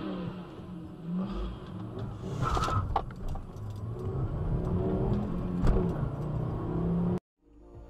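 Car engine revving, its pitch rising and falling, over road noise; the sound cuts off abruptly near the end.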